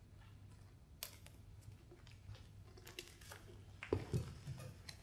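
Scattered light knocks and scuffs of barefoot dancers moving on a stage floor, with a heavier cluster of thuds about four seconds in, over a low steady hum.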